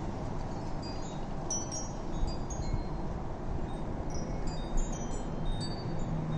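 Wind chimes ringing in a wind storm, a quick irregular scatter of high, short tones. Beneath them, a steady rumble of gusting wind on the microphone.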